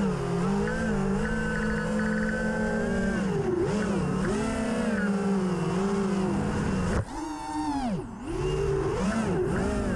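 An FPV quadcopter's four brushless motors (Hyperlite 2206 2300kv, spinning 5-inch three-blade props) are whining, the pitch rising and falling with the throttle. About seven seconds in, the throttle is cut: the whine drops sharply and sweeps down in pitch, then comes back up about a second later.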